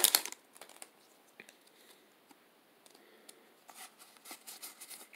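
A foil booster-pack wrapper crinkles briefly at the very start. Then come faint clicks and soft swishes of Pokémon trading cards being slid one behind another in the hands, with a few quick swishes close together near the end.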